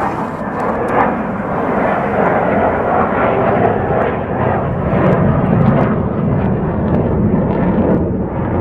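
Fighter jet flying over, its engine noise a loud, steady rushing that swells toward the middle and eases slightly near the end.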